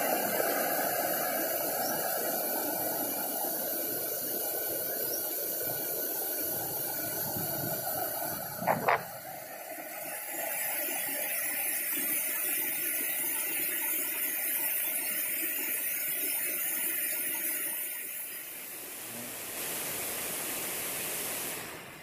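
Steady rushing of river water, with two quick loud knocks about nine seconds in.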